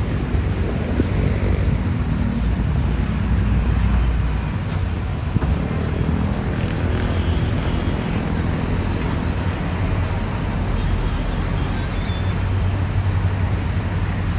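Heavy earth-moving machine's diesel engine running steadily with a low drone that shifts in strength a few times.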